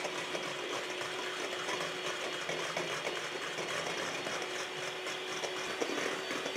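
Electric hand mixer running steadily at high speed, its twin beaters whipping egg whites in a stainless steel bowl into meringue. The motor gives a steady hum under the whisking, with a few light ticks.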